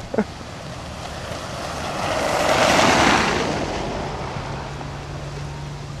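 A car driving past on a slushy, snow-covered road: the swish of its tyres through the snow swells over about two seconds, then fades away.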